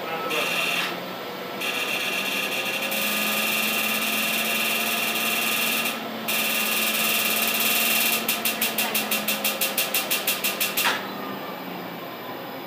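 LASIK laser system running: a loud steady hiss with a high whine, breaking off briefly twice, then a rapid pulsing of about seven beats a second for nearly three seconds before it stops.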